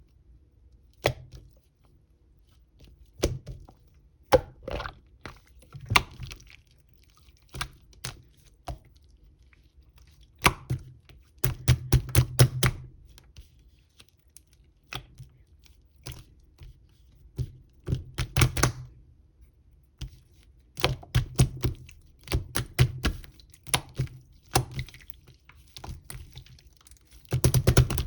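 Irregular sharp taps and knocks, some single and some in quick clusters of several strokes.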